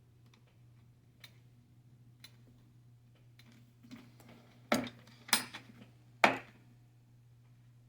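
Light clicks and knocks from handling the CaddyTrek R3 cart's frame latch and rubber hand grip as the grip is put back on: a couple of faint ticks, then three sharper knocks in under two seconds, over a steady low hum.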